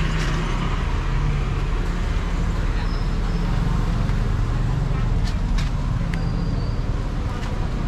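Steady rumble of a car driving along the road, engine and tyre noise, with a few faint clicks in the middle.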